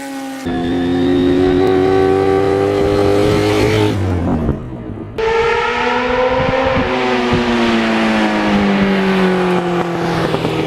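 Motorcycle engine running, its pitch sliding slowly downward as it slows, heard in three spliced clips with abrupt cuts about half a second in and about five seconds in.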